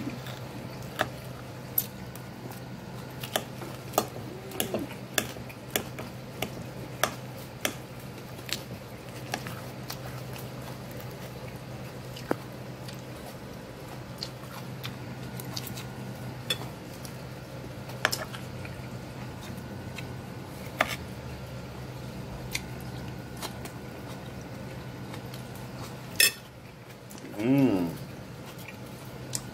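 Metal fork clinking and scraping against a ceramic plate while salad is picked up, in sharp irregular clicks about once a second.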